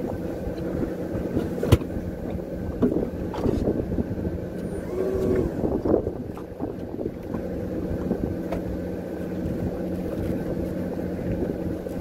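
Fishing boat's onboard machinery running with a steady low hum, with a single sharp knock a little under two seconds in.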